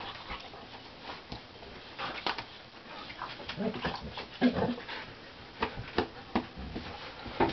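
Two dogs play-fighting: short, irregular dog vocal sounds mixed with scuffling on the bedding, loudest about four and a half seconds in.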